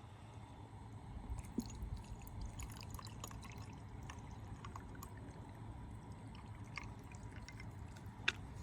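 Sumac tea poured into a glass over ice, the ice crackling with many faint little ticks and clinks, thickest in the first half, and one sharper clink near the end.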